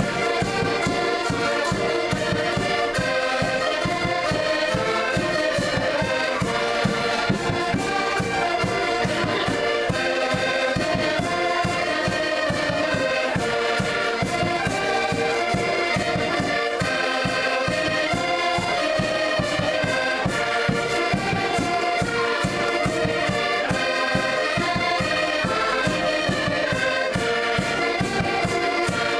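Several button accordions playing a traditional folk tune together, melody and chords held over a quick, even pulse of bass notes.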